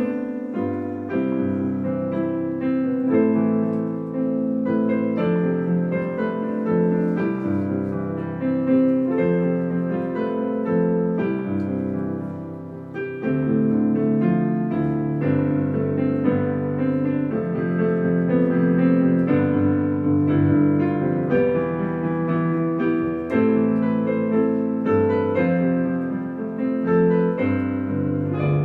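Solo piano playing an instrumental interlude, many notes struck with sustained chords; the playing softens briefly about halfway through, then fills out again.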